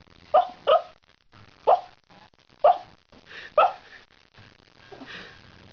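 A dog giving short, sharp barks: a quick pair, then single barks about a second apart, the last one faint.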